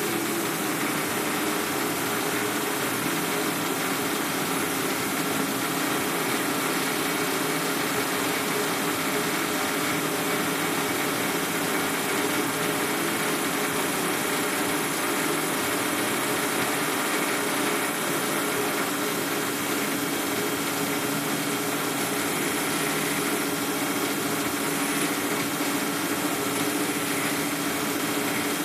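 Benchtop metal lathe running steadily with its three-jaw chuck spinning, a constant motor hum with a faint whine over it.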